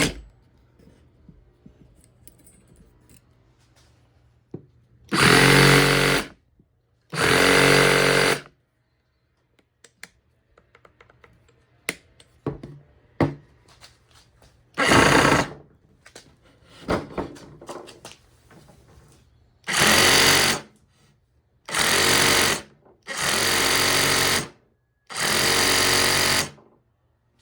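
Makita XRJ04 18V cordless reciprocating saw run briefly seven times, each burst lasting about one to two seconds as the trigger is pulled and released, as a function check of the refurbished saw. Faint clicks and handling noises fall between the runs.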